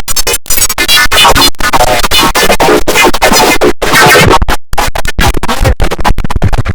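IBM OS/2 Warp 3 shutdown sound run through heavy audio effects: loud, distorted electronic tones chopped into a rapid stutter by many abrupt cut-outs, with a scratch-like warble.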